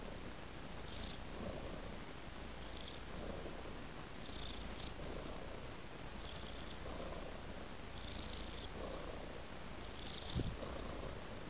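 Domestic cat purring steadily. The purr swells and eases with each breath, about once every two seconds. A single soft thump comes near the end.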